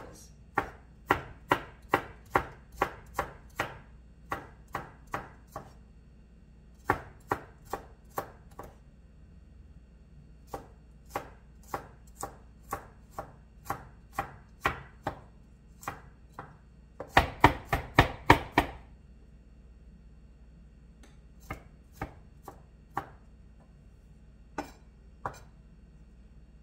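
Chef's knife mincing garlic cloves on a wooden cutting board: sharp knocks of the blade on the board, about two a second, in runs with short pauses. About two-thirds through comes a quick flurry of faster chops, then a few scattered chops near the end.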